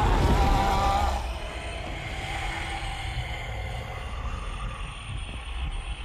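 The dragon Smaug's dying roar, a film sound effect: a loud, pitched cry that breaks off about a second in and gives way to a lower, steady rumble.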